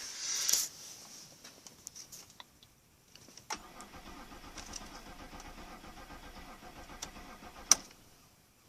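BMW 5 Series 530i engine starting about three and a half seconds in and running steadily for about four seconds, now that the faulty fuel pump relay has been replaced; a sharp click comes near the end and the running stops. Some handling noise and a few light ticks come before the start.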